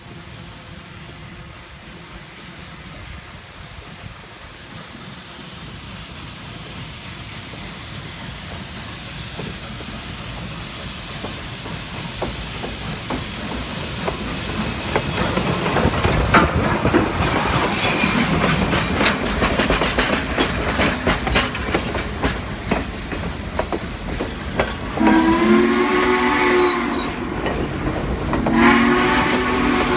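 Southern Pacific 4449, a 1941 GS-4 4-8-4 steam locomotive, approaching and passing close by: a hiss of steam that grows steadily louder, then the clatter of its wheels and rods going by. Its coaches' wheels follow, clacking over the rail joints, and two long whistle blasts sound near the end.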